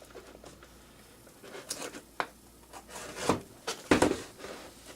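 Hand-handled cardboard package being worked at with a knife: scattered scrapes, rubs and knocks as the blade is pressed against it to cut it open, the loudest a little past three seconds and around four seconds in.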